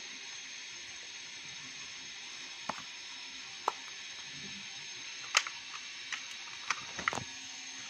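A few small, sharp clicks and taps from handling a metal geometry-box compass and its pencil clamp as they are set down on a table, spread over several seconds against a steady low hiss.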